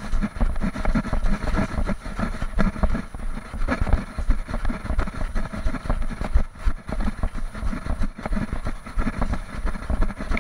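Moscow Metro train running at speed through a tunnel, heard from on the train: a loud, steady rumble of wheels on rails that echoes in the tunnel.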